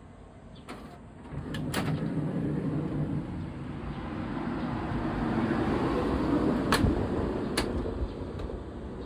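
Rear power sliding door of a Honda Step WGN RP4 running along its track, its motor humming steadily for several seconds, with sharp clicks about two seconds in and again near the end. It is the door the owner is checking for an intermittent abnormal noise that persisted after greasing.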